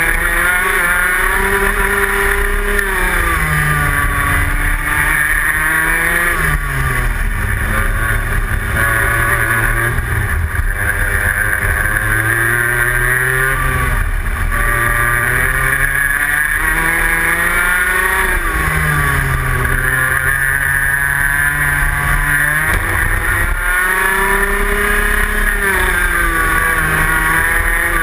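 Rotax Max 125 cc two-stroke single-cylinder kart engine at racing speed, heard close up from onboard the kart. Its pitch climbs under acceleration and falls as the throttle comes off, about seven times over.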